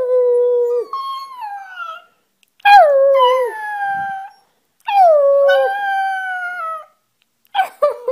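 Puppy howling: three long howls of about two seconds each, each sliding down in pitch at the start and then holding, with a shorter howl starting near the end.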